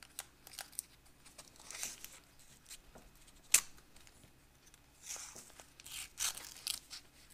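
Packaging of a vintage ration chocolate bar being torn and crinkled open by hand, in short bursts, with one sharp click about three and a half seconds in.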